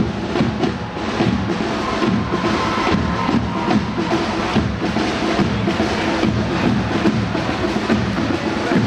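A group of marching side drums playing a steady rhythmic cadence together, the strokes dense and continuous.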